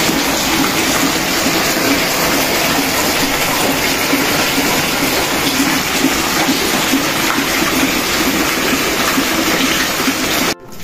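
Steady, even rush of falling water from a badly leaking roof, which cuts off suddenly near the end.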